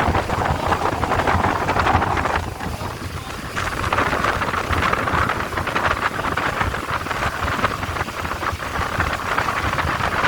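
Wind rushing over the microphone of a speedboat running at speed: a loud, steady noisy rush with crackling gusts, easing briefly about two to three seconds in, over the boat's running noise.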